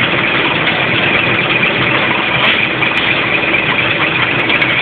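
Scania truck's diesel engine running steadily in first gear against the applied parking brake, which holds the truck still: the parking-brake test of a pre-trip safety check.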